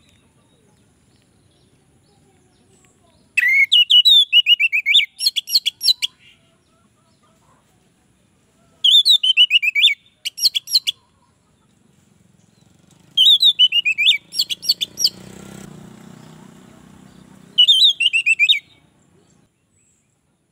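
Orange-headed thrush (anis merah) singing: four separate bursts of song, each a quick run of clear whistled notes stepping down in pitch and ending in a few rapid sharp notes. A faint low rumble sits underneath during the last two bursts.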